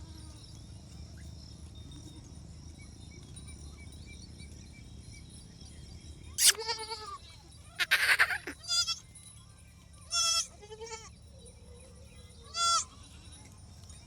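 Barbari goats bleating: about six short, wavering calls in the second half, after a few seconds of low background noise.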